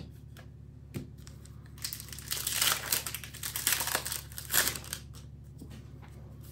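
Foil wrapper of a Magic: The Gathering Crimson Vow booster pack being torn open and crinkled by hand: a run of rustling crackles lasting a few seconds, after two light clicks near the start.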